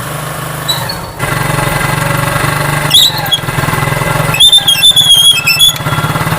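Motorcycle drum brake squealing as it is applied with the engine running: a short high squeal about a second in, another near three seconds, then a longer wavering squeal from about four and a half to nearly six seconds. The squeal is the brake shoe rubbing the drum, caused by carbon dust built up inside the drum.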